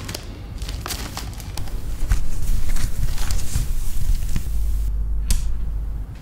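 Newspaper pages rustling and crackling as they are handled, in a string of sharp clicks. From about two seconds in a heavy low rumble runs underneath and is the loudest part.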